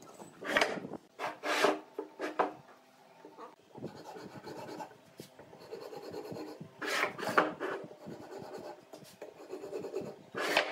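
Two-pin marking gauge scratching along hardwood beams as it scribes layout lines, in short scratching strokes: a few in the first seconds, two more about seven seconds in and one at the end, with fainter scraping between.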